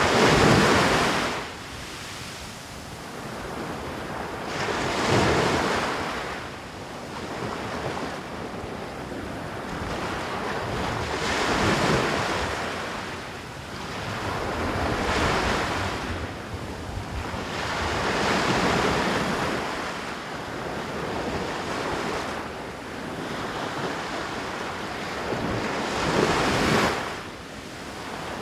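Ocean waves breaking on a beach, a hissing surf that surges and recedes every few seconds. The loudest breakers come right at the start and near the end.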